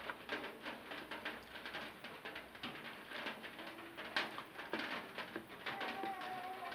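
Close-up eating sounds: many small wet clicks and smacks of chewing and handling rice and curry, with short low tones mixed in and a longer steady tone near the end.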